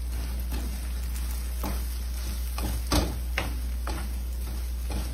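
Metal spoon stirring chili flakes, onion and garlic in hot oil in a wok, with scattered clicks of the spoon against the pan over a steady hiss and a low hum. The pan has just come off the flame, and the oil is still cooking in its own heat.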